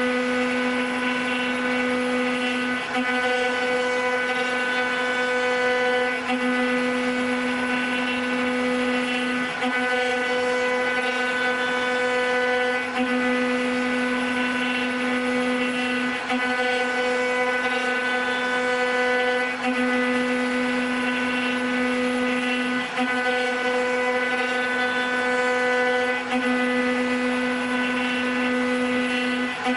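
Spindles of a multi-head 4-axis CNC wood router running with a steady, high machine whine. It dips briefly about every three seconds in a regular cycle.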